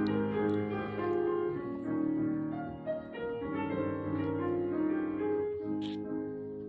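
Piano playing a passage of held notes and chords, growing softer toward the end.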